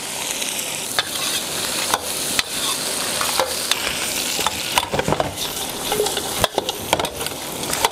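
Chicken pieces sizzling in hot lard in a wok, stirred and tossed with a steel ladle that clicks and scrapes against the pan: the chicken is being seared briefly before it goes into the stew pot.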